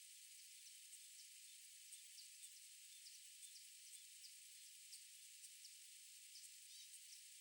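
Faint, steady high hiss of outdoor ambience, with quick faint high chirps or ticks every half second or so.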